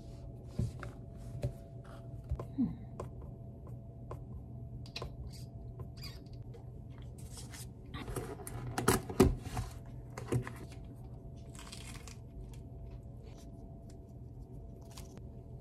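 A plastic clamshell sandwich box being opened and a paper-wrapped sandwich unwrapped: scattered clicks, crinkling and rustling, busiest about eight to ten seconds in, over a steady low room hum.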